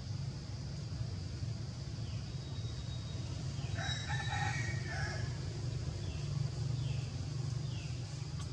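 A rooster crows once, about four seconds in, a single broken crow lasting about a second and a half, over a steady low rumble and a steady high hiss. A few faint, short falling chirps come near the end.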